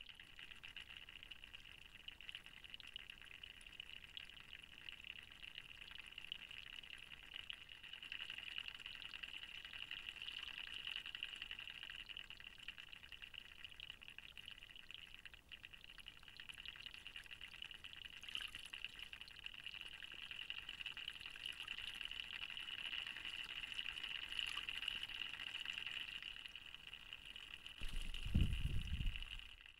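Faint, steady trickle of running water into a small pool, with a brief low rumbling near the end.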